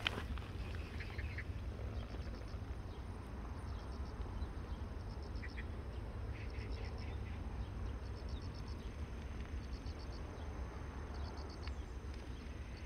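Faint outdoor garden ambience: a steady low rumble, with short trains of high, rapid chirps every second or two from a small animal, insect-like or bird-like.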